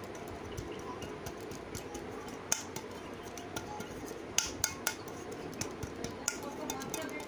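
Aluminium cake bowl being turned and tapped by hand to coat its oiled inside with flour: scattered sharp metallic taps and clinks, several close together about halfway through, over a steady background noise.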